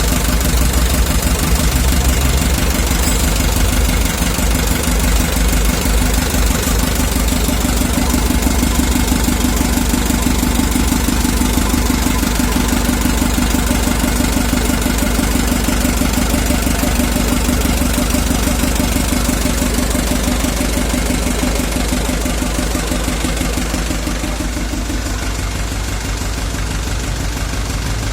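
Toyota Dyna HT truck's diesel engine idling steadily, recorded in its state before a purging (carbon-cleaning) treatment. It eases a little in level over the last few seconds.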